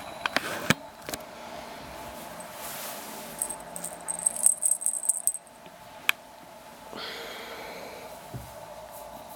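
A small cat toy jingling in quick shakes for about two seconds in the middle, with a few sharp clicks near the start. A faint steady hum runs underneath.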